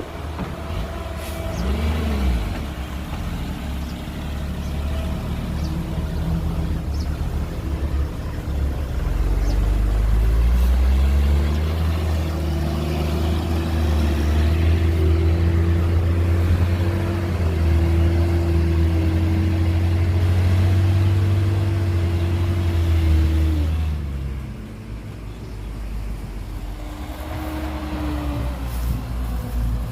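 Heavy diesel engine of a piece of earthmoving machinery running. About ten seconds in it revs up and holds hard under load for roughly twelve seconds, then drops back to a lower speed, with a shorter rise near the end.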